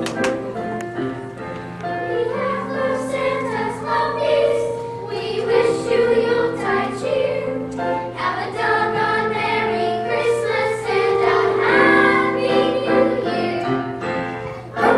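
A children's choir singing a Christmas song together.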